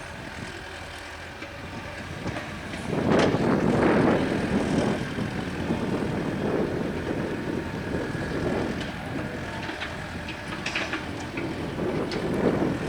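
CAT 320D excavator running and working. The noise of the machine rises sharply about three seconds in and stays loud and uneven, with a few knocks and clatters.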